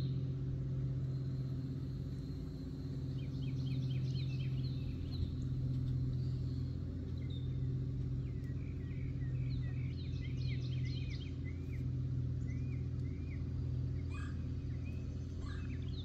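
Songbirds singing repeated chirping phrases over a steady low mechanical hum, which is the loudest sound throughout.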